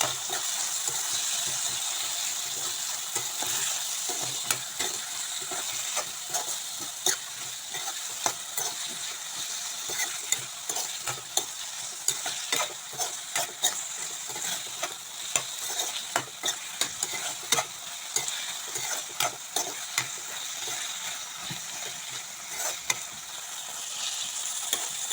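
Freshly added chicken pieces sizzling in hot oil while being stirred, the utensil clicking and scraping against the pan at irregular moments.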